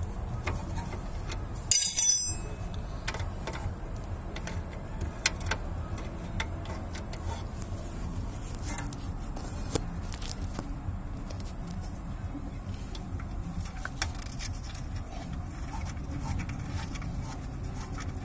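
A loud metallic clink with a brief high ring about two seconds in, then scattered small clicks and knocks of hand tools on the car's suspension parts, over a steady low hum.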